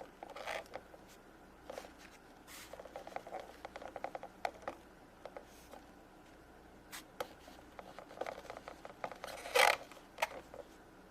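Small plastic toy figures clicking and rattling as they are loaded into a plastic toy vending machine, with scattered light taps and scrapes and one louder, brief clatter near the end.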